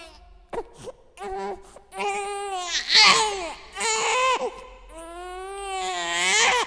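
An infant crying: a string of wailing cries, each rising and falling in pitch, with short catches of breath between them and a long wail that swells near the end.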